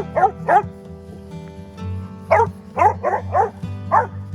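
Catahoula Leopard Dog barking in short, sharp barks while playing: three quick barks at the start, then about five more from two seconds in. Background music runs underneath.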